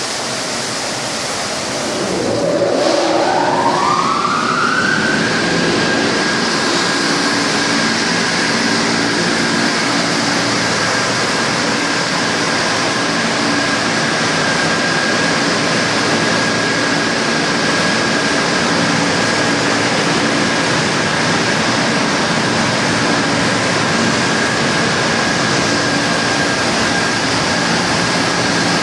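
Tunnel car wash machine running: a loud, steady rushing noise with a low motor hum. About two seconds in, a motor whine starts and rises in pitch for about three seconds as it spins up, then holds one steady high note.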